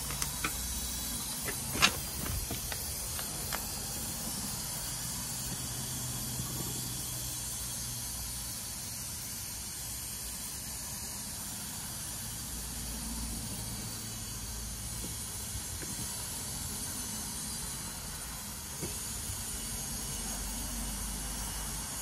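Nitrogen hissing steadily through the gauge manifold and hoses as the air conditioner's repaired pipework is pressurised for a leak test. A few sharp clicks come near the start.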